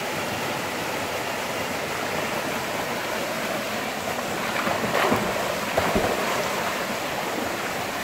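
Small waterfall pouring into a rock pool: a steady rush of falling water. A dog splashes through the pool a couple of times about five and six seconds in.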